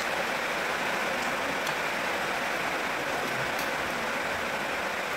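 Steady rushing background noise at an even level, with a few faint ticks.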